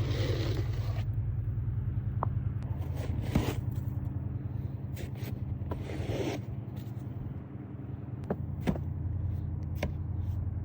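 A car engine idling steadily while snow and ice are scraped off the car. There are a few short scrapes, the clearest at the start and about six seconds in, along with light knocks and clicks.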